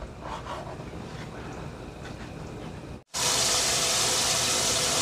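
Water running steadily. It cuts in abruptly about three seconds in, after a quieter stretch of faint background noise.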